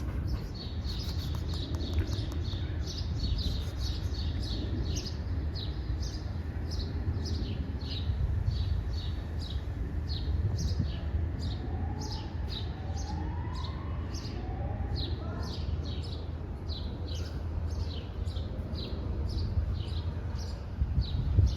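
Small birds chirping: short, falling high notes repeated about twice a second, over a steady low rumble.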